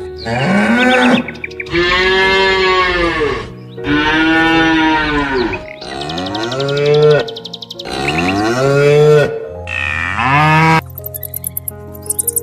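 A bovine mooing again and again: about six long calls of a second or two each, each rising then falling in pitch. Near the end it gives way to high bird chirps over background music.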